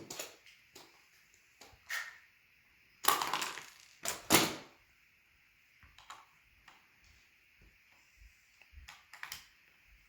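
Parts of a DIY dinosaur assembly kit, plastic pieces and screws, clicking and knocking as they are handled. There is a short rattling clatter about three seconds in and a sharp knock just after four seconds.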